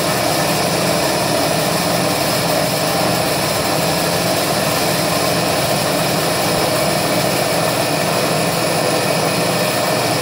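CNC milling machine cutting thin aluminium plate with a small end mill: a steady mechanical drone of the running spindle and the cut, with several constant tones.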